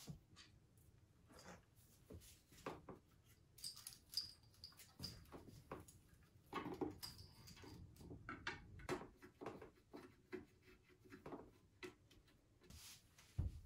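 Faint clicks, knocks and rattles of a metal scooter frame and its parts being handled and fitted together on a wooden floor, with a heavier thump near the end.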